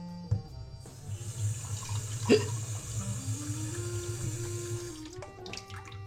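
Water tap running into a sink for about four seconds, starting about a second in, with a single clunk partway through. Background music plays throughout.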